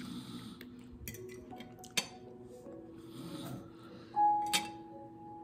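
Fork clinking against a plate while pasta is eaten, with mouth noises of eating in between. There are sharp clinks about two seconds in and again near the end, and a louder ringing strike about four seconds in.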